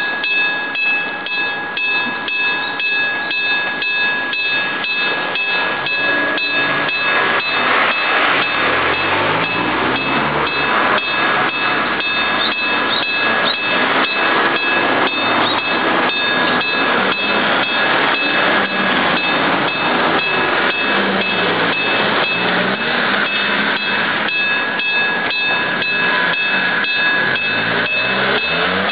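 Old-style electric-bell level-crossing alarm ringing with rapid, even strokes, while an Enoden electric train runs over the crossing. Its motor tone rises and falls about a third of the way in and again near the end.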